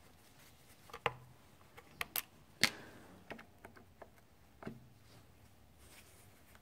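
Scattered sharp clicks and taps, about seven of them, from a yellow-and-black folding hex-key set being handled and folded. The loudest click comes about two and a half seconds in.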